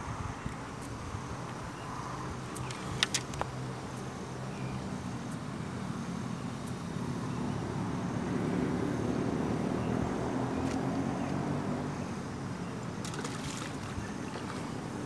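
A distant engine hums steadily, growing louder towards the middle and easing off again. A few short clicks come about three seconds in and again near the end.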